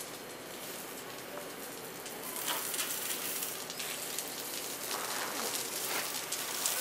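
Water spraying from a garden hose onto a packed-dirt yard, a steady hiss and patter like rain on the ground. It grows louder about two seconds in.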